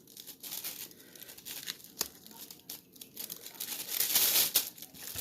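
Plastic bag crinkling and rustling in irregular bursts as pieces of raw chicken thigh are put into it, loudest in a longer rustle about four seconds in.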